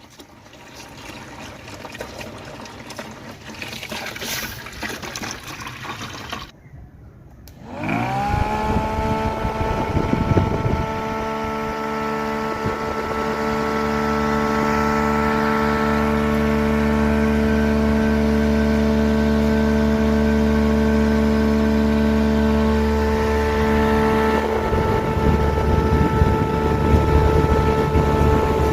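Water trickling, then about eight seconds in the small DC fan motor of a homemade evaporative air cooler spins up quickly and runs on with a steady hum.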